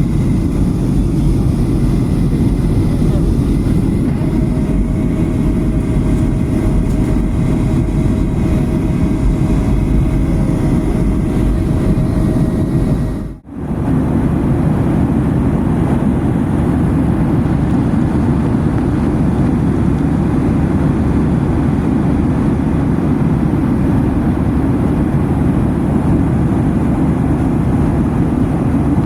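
Steady airliner cabin noise in flight: an even, low rush that drops out briefly about halfway through, with a faint thin steady tone during the first half.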